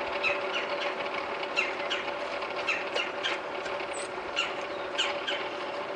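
Forge's electric blower running with a steady hum while the fire heats, and repeated short, quickly falling high chirps over it.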